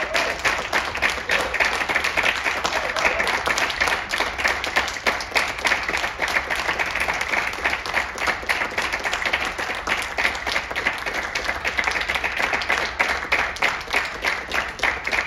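Audience applauding steadily, a dense stream of many hands clapping.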